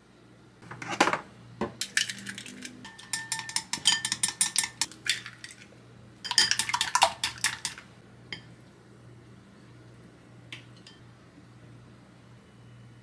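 Dishes and utensils clinking and clattering in two spells of quick clinks, the first with a faint ringing tone. A few scattered taps follow after about eight seconds.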